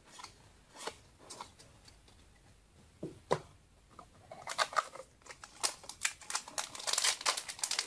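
Trading cards and a foil booster pack being handled: a few faint clicks at first, then from about halfway an increasingly busy crinkling and crackling of the foil wrapper.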